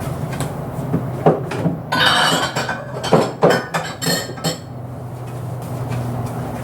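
Dishes and cutlery being put away: crockery knocking and clinking, with a ringing clatter about two seconds in and a few sharp knocks after it. A steady low hum lies underneath.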